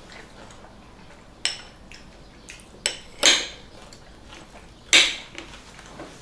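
Forks and spoons clinking against ceramic bowls and plates during a meal: a few sharp clinks, then two longer, louder clatters about three and five seconds in.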